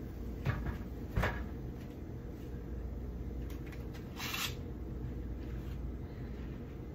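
Baking tray of fries set down and handled on the stovetop: two knocks about a second in, then a brief rustling scrape about four seconds in, over a steady low hum.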